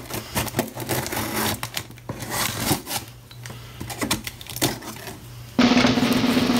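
A knife blade slitting and scraping the packing tape along a cardboard box's seam: irregular scratching, clicking and rustling of tape and cardboard. About five and a half seconds in, loud music with drums cuts in abruptly.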